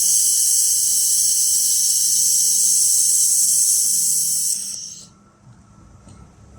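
Fiber laser welding machine welding aluminum: a loud, steady high hiss that dies away and stops about five seconds in.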